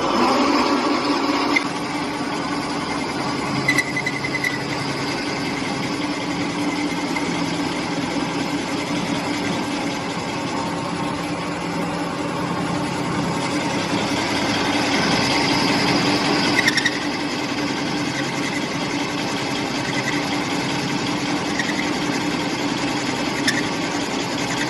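Lathe running steadily through a turning cut, the tool taking a light depth of cut along the workpiece. A few brief high-pitched squeaks come through, about four seconds in, near the middle and near the end.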